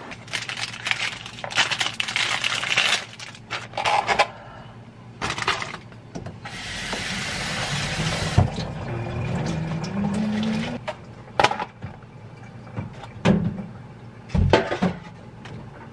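Kitchen tap running into a bowl of salad greens for about four seconds mid-way, with the pitch rising as the bowl fills. It comes between rustling and crinkling at the start and a few knocks and thumps of the bowl being handled in the sink near the end.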